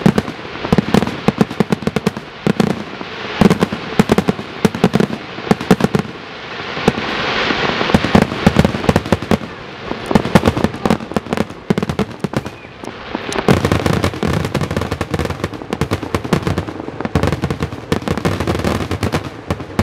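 Fireworks finale: aerial shells bursting in rapid succession, dozens of sharp bangs with crackling. A hissing swell rises and fades around the middle, and the last third is a denser barrage of deep booms.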